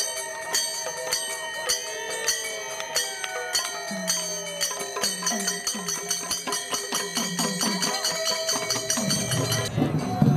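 Ringing metal percussion, small bells or hand cymbals, struck in a steady rhythm of about three strikes a second over a held tone. The ringing stops near the end as louder voices and music come in.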